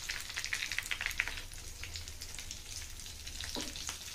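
Batter-coated stuffed chilies deep-frying in hot oil in a pan: a dense, irregular crackling sizzle.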